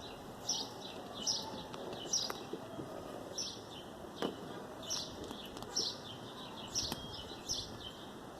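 A bird calling with short, high chirps repeated at a steady pace a little more than once a second, with a few faint clicks in between.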